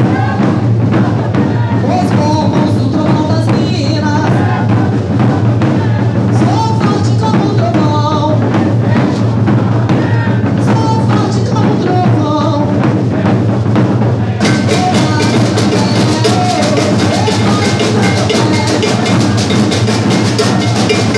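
Maracatu percussion group playing: deep bass drums and snare drums beating a dense, driving rhythm. About two-thirds of the way through, the drumming turns brighter and crisper.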